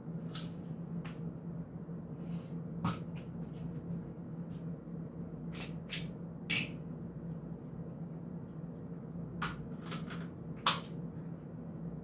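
Camera support gear being handled and fitted together, with a video head being mounted on a small tripod base: scattered sharp clicks and knocks of metal and plastic parts, the loudest a little past the middle and near the end, over a steady low hum.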